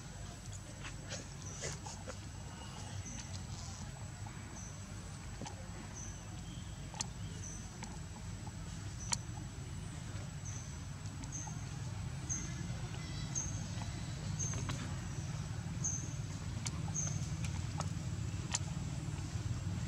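Forest ambience: short high-pitched chirps about once a second in runs, over a thin steady high whine and a low steady rumble, with a few scattered sharp clicks.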